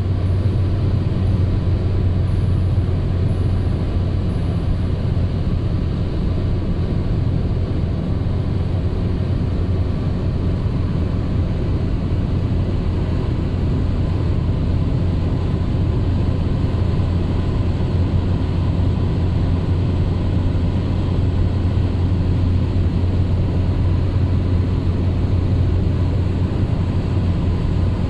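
Steady low rumble of a car cruising at highway speed, heard from inside the cabin: tyre and engine road noise with no change throughout.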